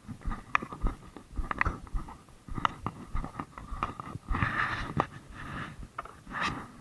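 Close handling noises as fishing gear and a plastic tackle box are moved: irregular light clicks and knocks, with a rustle about four and a half seconds in.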